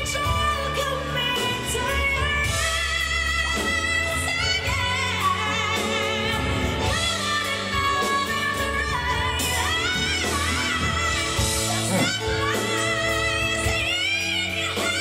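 A female singer's voice with a live backing band, holding long notes with vibrato and gliding up near the end.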